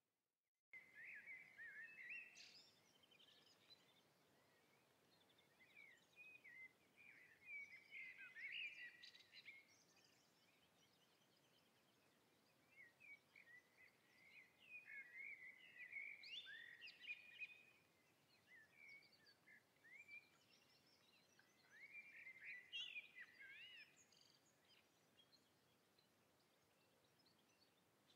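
Faint songbird singing in repeated bursts of quick, twittering, warbling phrases, with short pauses between bursts over a quiet background.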